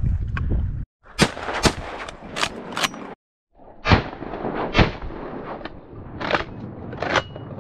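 Shotguns firing at waterfowl, about nine sharp shots in two quick strings with a short break between them. Wind rumbles on the microphone for the first second.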